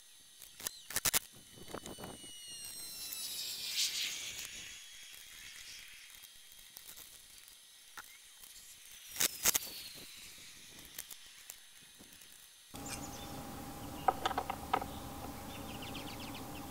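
Metal clicks and knocks of doorknob and deadbolt hardware being fitted into a steel exterior door, with a short falling whine around four seconds in. From about 13 seconds in a steady hum sits under further clicks as the latch and strike plate on the jamb are handled.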